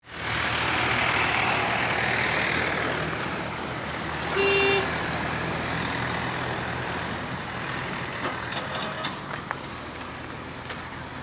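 Turmeric steam boiler letting out a steady hiss of steam that slowly fades, with a short horn-like tone about four and a half seconds in and a few clicks near the end.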